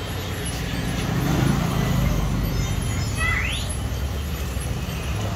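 Steady low rumble of road traffic, with a short rising squeak about three seconds in.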